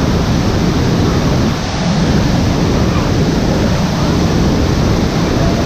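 Waterfall: a loud, steady rush of falling water, with a brief dip about a second and a half in.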